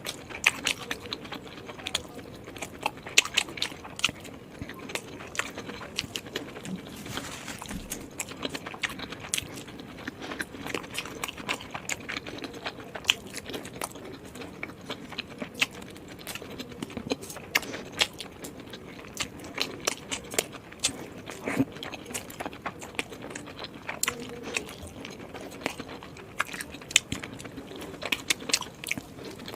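A person chewing and biting into momos (dumplings), with a steady run of short, wet mouth clicks and smacks, several a second.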